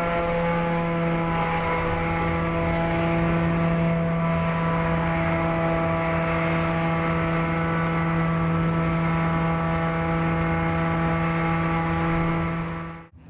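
Crashed helicopter's turbine engine still running after the impact: a steady droning tone with many overtones, its pitch slowly sinking, cutting off suddenly near the end.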